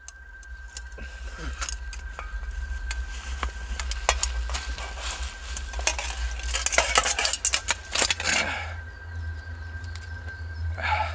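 Dry leaf litter crackling and rustling as a person scrambles and rummages through it on hands and knees, in many sharp crackles that come thickest about six to eight seconds in. Under it runs a low steady rumble and a faint steady high tone.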